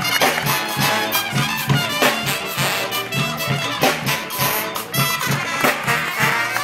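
Live brass band playing upbeat music, horns over a steady low beat.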